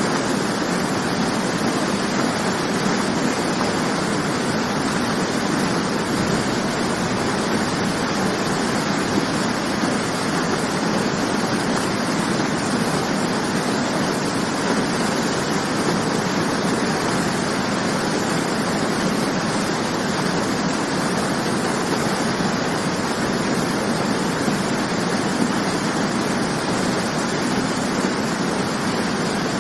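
Waterfall: the steady, even rush of falling water crashing, with no changes or breaks.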